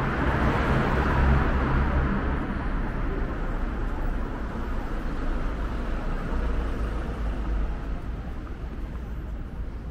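City street traffic: vehicles running past in a steady low rumble, with one passing close and louder about a second in.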